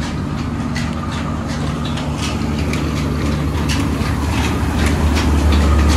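Belt-driven machinery of a village flour and mustard-oil mill running: a steady low hum with a constant run of clicks and knocks, a little louder near the end.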